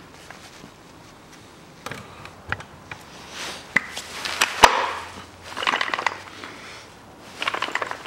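Steel parts of a five-speed manual gearbox, its gear shafts and housing, clinking and knocking as they are handled and fitted. There are a few light clicks, a sharp metal knock about halfway through, then two short bursts of ringing metallic rattling.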